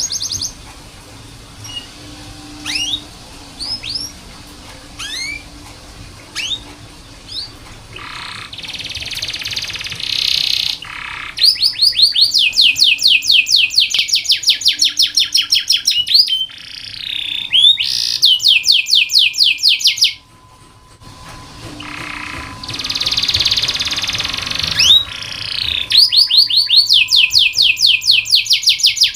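Domestic canary singing: a few scattered chirps, then harsh buzzy phrases alternating with long fast rolls of rapidly repeated sweeping notes. This is a tutor song used to train young canaries to sing.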